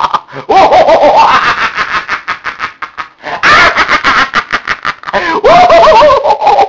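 A man laughing hard and loudly in quick bursts of ha-ha, ending in one long drawn-out cry near the end.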